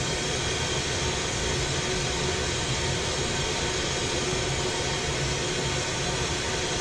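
Glassblower's bench torch burning with a steady rushing hiss while it heats a glass piece on a rod.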